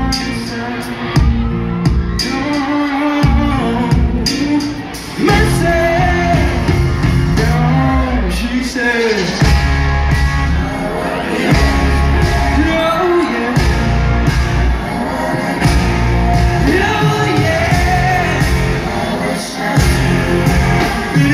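Live band music with a male lead singer, recorded from within the audience: heavy bass, held notes and sung vocal lines.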